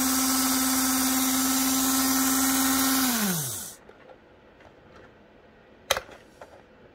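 The small electric motor of a LifeLike HO-scale GP7 model locomotive runs at full power with a steady whine and clean power. About three seconds in it winds down, its pitch falling, and stops. A single sharp click follows a few seconds later.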